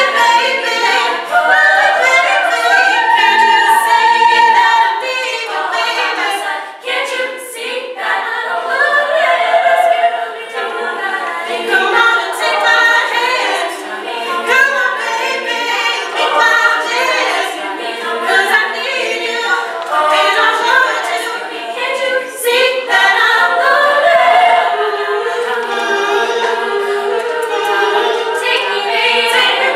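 Female a cappella group singing in harmony, several voices at once with no instruments. The singing runs on without a break.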